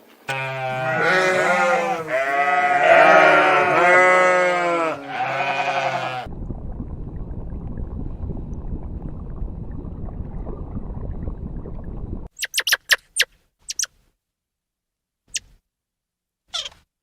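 A sheep or goat-type animal bleating, several long, wavering calls in a row over the first six seconds. A low, even rumbling noise follows for about six seconds and cuts off suddenly, then a few short, sharp high chirps.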